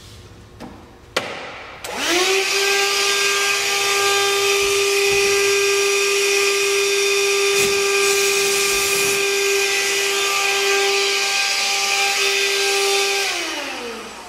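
Craftsman handheld vacuum and Ridgid cordless drill running together while the drill bores a hole through drywall: a steady motor whine starts about two seconds in, holds level, then winds down in pitch near the end.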